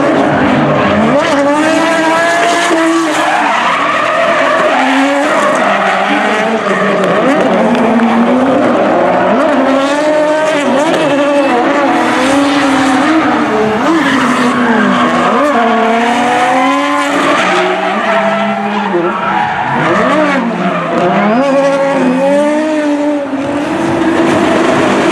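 Two BMW drift cars, an E30 and an E36 Compact, run hard side by side, their engines revving up and down constantly. The tyres squeal and skid over the engines as the cars slide sideways.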